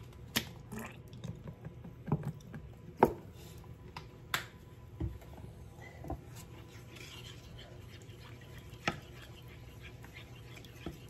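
Ketchup squeezed from a plastic squeeze bottle into a pan of sauce, with scattered clicks and knocks as the bottle is handled and set down, the loudest a few seconds in. Near the end a wooden spoon stirs the sauce in a stainless steel frying pan. A faint steady hum runs underneath.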